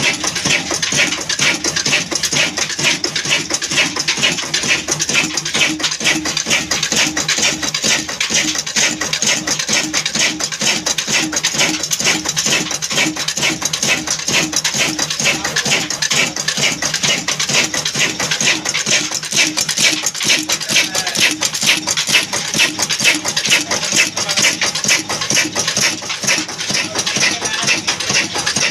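Old Ruston & Hornsby horizontal stationary diesel engine running steadily, its valve gear and fuel pump making a fast, even metallic clatter over the beat of the engine.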